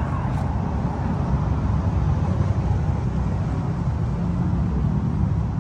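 Wahl Magic Clip cordless hair clipper running steadily while cutting a fade into short hair at the side of the head.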